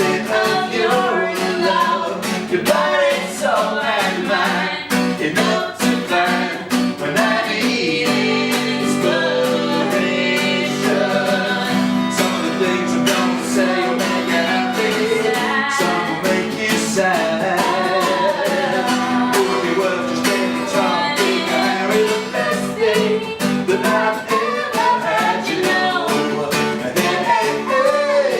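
Live acoustic band music: singing over strummed acoustic guitar.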